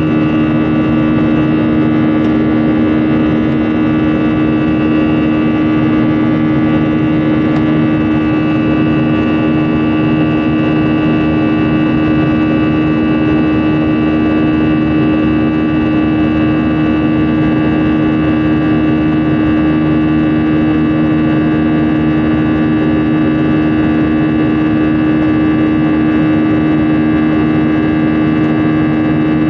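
Airbus A320's jet engines running at climb power, heard inside the cabin: a loud, constant low hum with several steady whining tones above it, over a rush of airflow noise.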